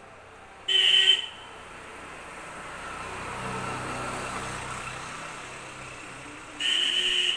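A vehicle passes by, its sound swelling to a peak midway and fading again, with two short, loud horn honks about six seconds apart.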